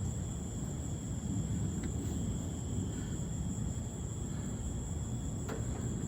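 Outdoor night ambience: a steady low rumble with a steady high insect drone, likely crickets, and a single sharp click about five and a half seconds in.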